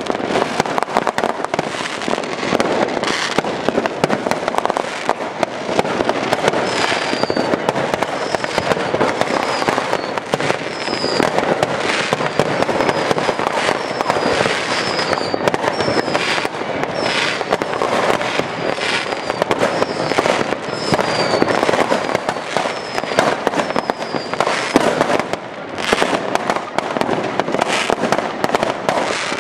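Fireworks going off in a dense, continuous barrage of bangs and crackles. A string of short, high, falling whistles runs through the middle.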